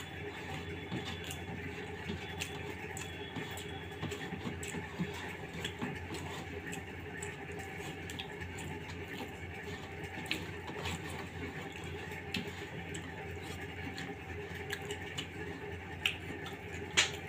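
Eating rice with the fingers from a steel plate: soft scrapes, squishes and scattered small clicks of fingers gathering khichuri on the metal, with mouth and chewing sounds, over a steady low hum. A sharper click comes near the end.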